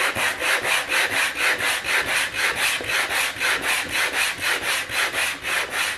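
100-grit sandpaper wrapped over a half-inch rubber contour sanding grip, rubbed quickly back and forth along the juice groove of a wooden butcher-block cutting board: an even rasping at about four to five strokes a second that stops near the end.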